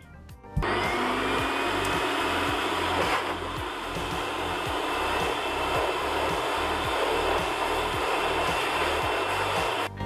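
AIIYME 3200W high-velocity dog dryer switched on about half a second in, then blowing steadily with a rushing air noise and a faint high whistle that rises as the motor spins up.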